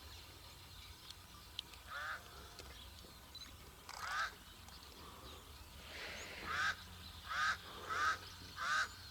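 A bird calling: six short calls, two spaced out and then four in quick succession about two-thirds of a second apart near the end.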